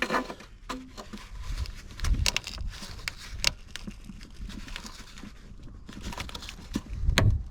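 Irregular metallic clicks, scrapes and knocks of hand tools working a rusted, seized stud, with a couple of duller thuds.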